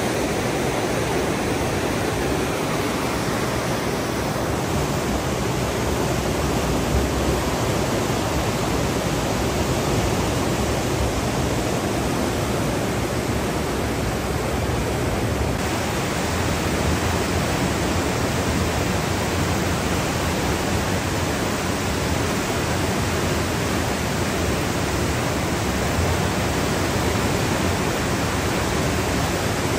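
Smith River in flood: fast, muddy water rushing and churning over rapids and around a concrete bridge pier, a steady, unbroken rushing noise.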